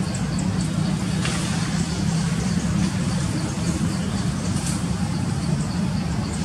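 A steady low mechanical drone, like an engine running, with faint high ticking in a quick regular rhythm of about four a second.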